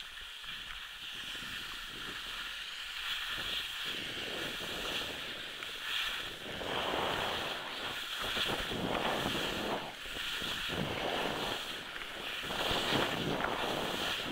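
Wind buffeting the microphone while skiing downhill, with skis hissing and scraping over wet snow. It grows louder a few seconds in, then rises and falls every second or two.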